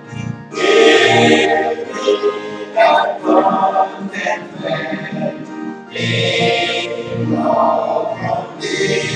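A congregation singing a hymn together.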